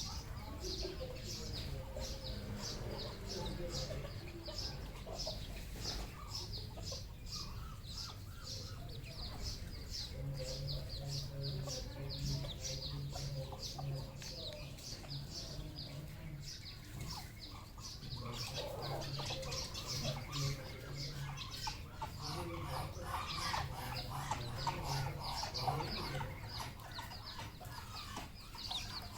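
Red junglefowl clucking, with a dense run of rapid high chirps throughout and a low hum underneath.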